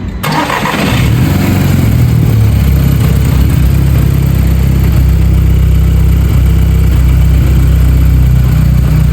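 MK5 VW Golf GTI's 2.0 TFSI four-cylinder turbo petrol engine starting on a cold start, catching about a second in and then idling steadily. It still has a slight misfire that a new PCV valve has not cured.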